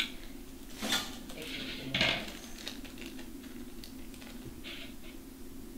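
A metal whisk clinks twice against a glass bowl, about a second apart, while a zip-top plastic bag crinkles as it is pulled open.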